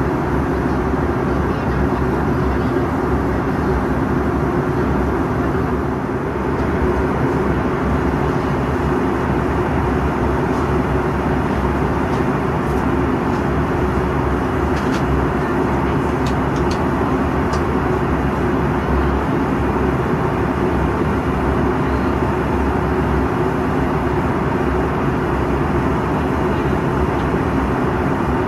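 Steady drone inside the cabin of a Bombardier CRJ-700 in flight: the rear-mounted General Electric CF34 turbofans humming with air rushing past the fuselage. A few faint ticks come midway.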